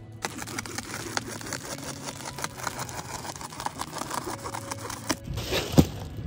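Scissors cutting through Reflectix foil-bubble insulation: dense crinkling and crackling with rapid sharp clicks for about five seconds. Near the end, a single loud bonk.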